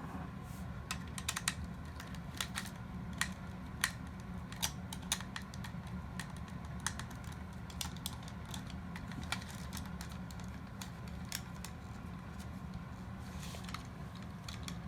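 Irregular small clicks and taps of hard plastic toy-robot parts being handled and pried during disassembly, a few each second, over a steady low hum.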